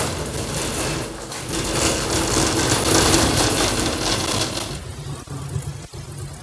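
Wheeled metal cart loaded with wooden boards rolling over a concrete floor, its load rattling, growing louder toward the middle and then dropping off about three quarters of the way through.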